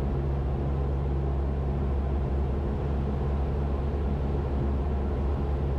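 Cessna 172's piston engine and propeller running steadily on final approach, heard inside the cabin as an even, low drone.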